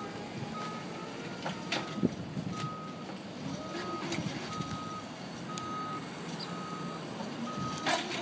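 Stand-up forklift's backup alarm beeping steadily, about one beep a second, while the forklift reverses, with a few sharp knocks, the loudest near the end.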